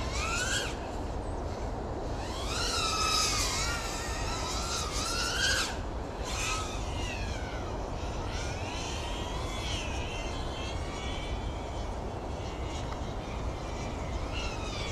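FPV quadcopter's brushless motors and propellers whining in the air, the pitch rising and falling as the throttle is worked, with brief drops around one second in and again near six seconds.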